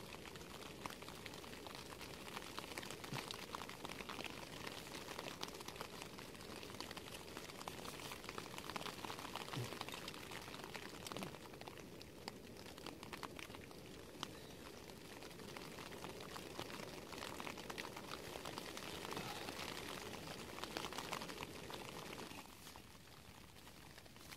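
Pot of water near the boil on a small gas canister camping stove: the burner's steady hiss with fine bubbling and crackling, quietening near the end.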